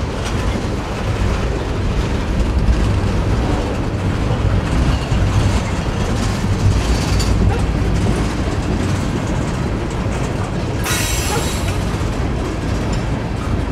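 Freight train tank cars rolling past: a steady, loud rumble of steel wheels on the rails, with a brief high-pitched squealing burst about eleven seconds in.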